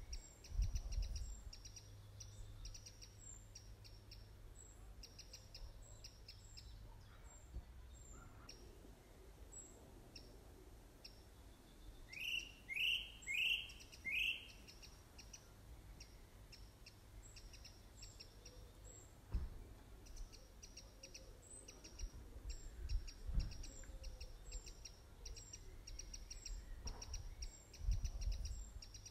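Birds chirping, with a steady run of short high chirps and a burst of four louder rising calls about halfway through. A few dull low thumps come and go.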